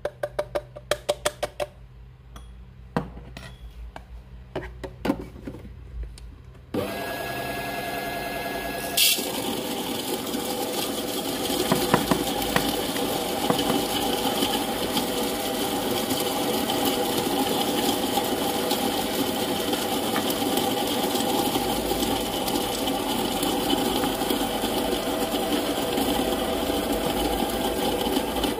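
Light taps and clicks as ground coffee is knocked from a dosing cup into an espresso brew chamber. About seven seconds in, a small electric motor starts, runs steadily for about twenty seconds and winds down with a falling pitch at the end.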